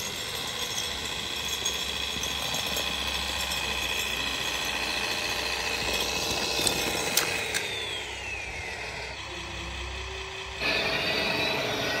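Scale RC model of a Fendt 1050 tractor running as it tows a roller, a steady mechanical running sound with a few sharp clicks around the middle. Near the end the sound changes abruptly to a louder rushing noise.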